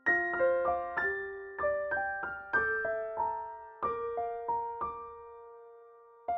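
Background music: a gentle piano melody of single struck notes, each fading away, with a pause after a long held note about four seconds in.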